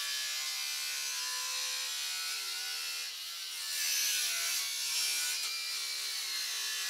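Cordless angle grinder with a cut-off disc cutting through a sheet-steel rust repair panel: a steady high motor whine over a hissing grind, dipping briefly about three seconds in as the disc is worked along the cut.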